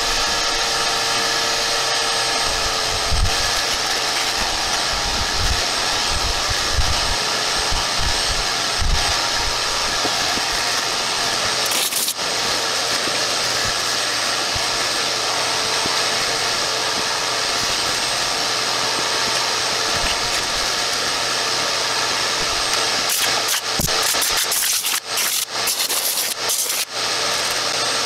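Shop vacuum running steadily while its hose sucks dirt and critter-nest debris from around an ATV clutch, with scattered knocks and a flurry of clicks near the end as debris is drawn up the hose.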